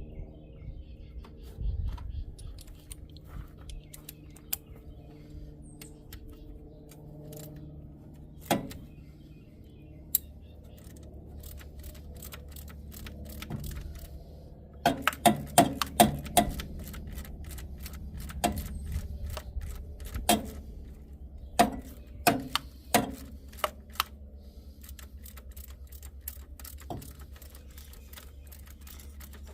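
Metal hand tools clinking and clicking against the engine while a 14 mm wrench works loose the power steering belt, with a quick run of sharp clicks and knocks about halfway through and more scattered ones after. A steady low hum runs underneath.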